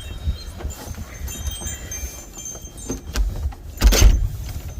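Strong blizzard wind buffeting the microphone in a steady low rumble, with a hard gust about four seconds in. Thin, high ringing tones sound on and off over the wind.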